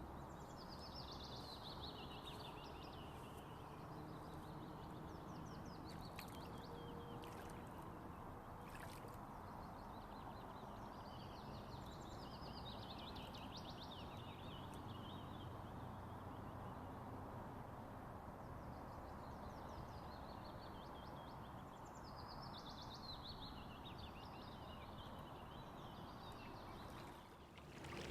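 A songbird singing several times, each song a quick run of notes falling in pitch over about two to three seconds, over a steady hiss of water.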